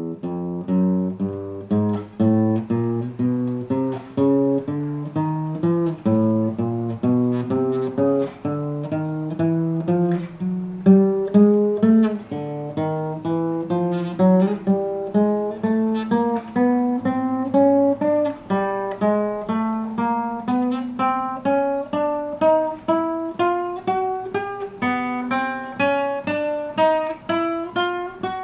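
Acoustic guitar playing single plucked notes one at a time, about two a second, stepping up fret by fret so the pitch climbs steadily, falling back twice before climbing again.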